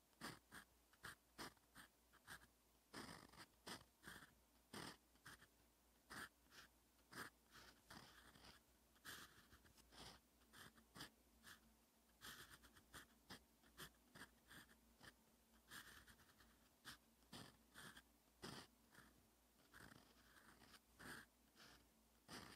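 Fountain pen nib scratching faintly across paper in quick short strokes of handwriting, several a second with brief pauses between letters.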